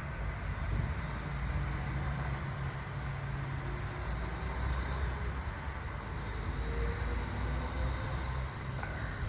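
Steady background noise of a quiet recording turned up: a constant low rumble with hiss and a thin, steady high whine, which the uploader says sounds like crickets.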